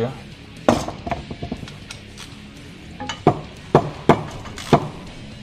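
A series of about six sharp metallic clinks and knocks, spaced irregularly, from hand tools and loose parts being handled while a car's rear axle is dismantled.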